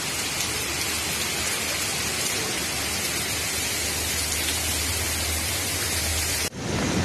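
Steady hiss of water in a flood scene, even and unbroken, cutting off abruptly about six and a half seconds in where the recording jumps to another scene.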